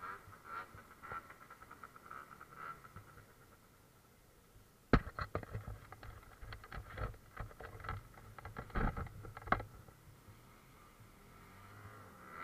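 Handling noise on an action camera's case: soft rustling at first, then a sharp click about five seconds in and a run of irregular clicks and knocks for about five seconds as gloved hands work close to the camera.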